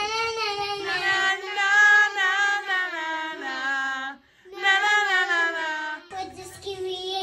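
A young child singing in long held notes, with a brief pause about four seconds in.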